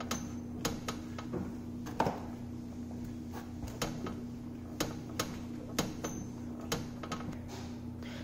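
Irregular light clicks and taps, roughly one or two a second, over a steady low hum.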